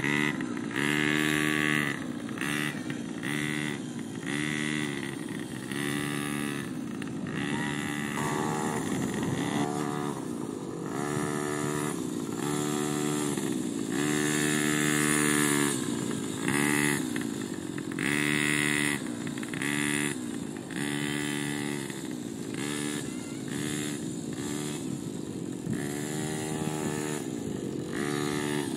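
Small 49cc petrol engine of a kids' mini ATV running while it is ridden, its pitch rising and falling in repeated surges about once a second as the throttle is opened and eased off.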